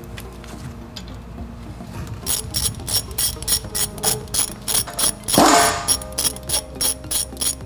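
Hand ratchet clicking in quick runs as it backs out the bolts holding the front wheel bearing hub to the knuckle of a Dana 44 axle. There is one louder, longer rasp about five seconds in.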